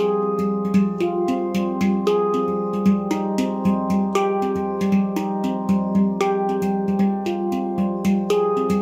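Handpan by Nimo Sounds, tuned to F low pygmy, played by hand in a flowing improvisation. Quick finger strikes, several a second, leave notes ringing on over a sustained low tone.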